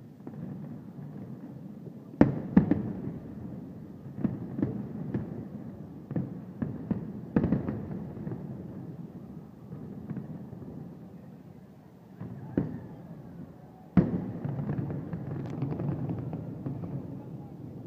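Aerial fireworks shells bursting overhead: a string of sharp bangs with echoing, rumbling tails, coming in clusters, with a large bang about 14 seconds in.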